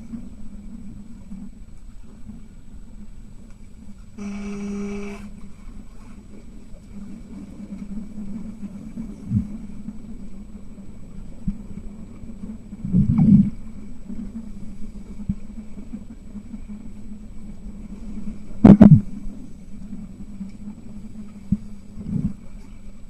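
Underwater sound in a swimming pool during an underwater rugby match, heard through the underwater camera: a steady low hum, a buzzing tone lasting about a second about four seconds in, and heavy thumps about halfway through and again near the end, the later one the loudest.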